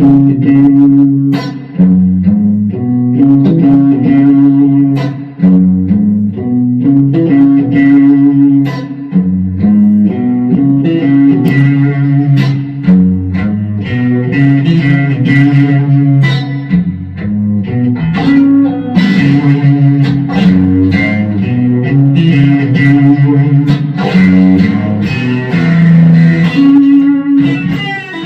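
Electric guitar, a Fender Player Series Stratocaster through a Fender Super Reverb amp, played loud with a repeating low riff mixed with chords.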